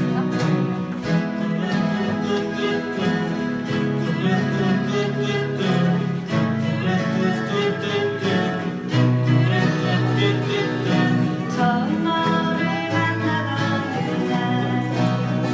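Acoustic guitars strumming chords in a steady rhythm, playing a song.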